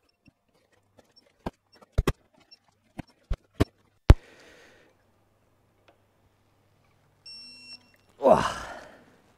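Ratchet head of a digital torque wrench clicking several times at uneven intervals as a flywheel bolt is turned through its final 90-degree angle, with one sharper knock about four seconds in. The wrench then beeps once, briefly, signalling the target angle is reached, and a man lets out a short sigh near the end.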